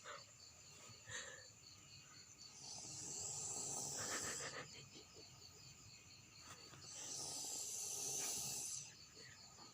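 A sleeping person snoring: two long snores, one about three seconds in and one about seven seconds in, each lasting around two seconds.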